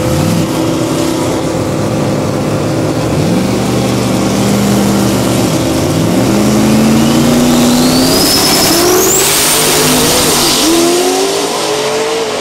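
Drag race cars' engines revving hard as they launch and run down the strip, the engine note climbing in several steps. A high-pitched whine rises in the middle.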